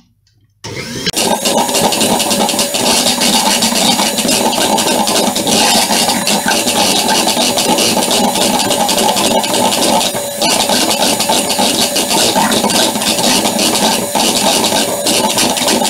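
Electric hand mixer switching on about half a second in and running steadily, its twin beaters whisking buttercream in a plastic bowl. The sound dips briefly about ten seconds in.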